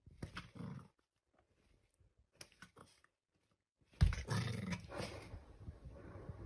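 Corgi puppy growling: a short growl just after the start, then a sudden, louder growl about four seconds in that lasts about a second.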